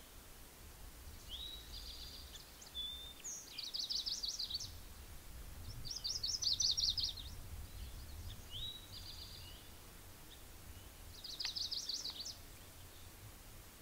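A songbird singing about five short trilled phrases, each about a second long and a couple of seconds apart, over a faint low rumble.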